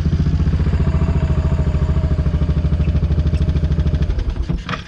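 Side-by-side UTV engine running with a rapid, even pulse after its starter is jumped past a faulty starter solenoid, then shutting off about four seconds in.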